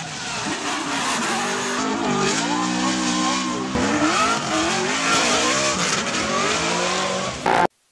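A drift car's engine revving hard, its revs rising and falling, over the steady hiss and squeal of spinning tyres. The sound cuts off abruptly near the end.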